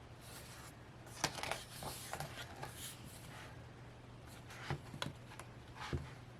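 Paper and card handling: rustles and light taps as the pages and photocards of a K-pop album's photobook are turned and handled, busiest from about a second to three seconds in, with a few sharper taps near the end.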